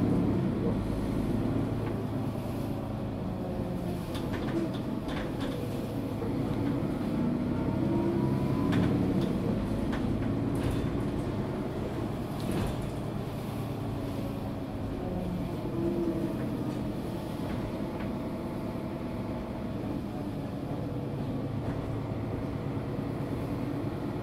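Mercedes-Benz Citaro G articulated bus's OM457 six-cylinder diesel and ZF Ecomat 6HP automatic gearbox, driving in the low gears; the engine note rises and falls as the bus pulls through the gears.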